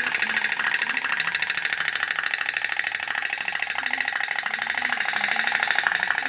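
Pop-pop (putt-putt) toy boat running: its candle-heated boiler drives water out through the tubes in a steady, rapid, even run of pops.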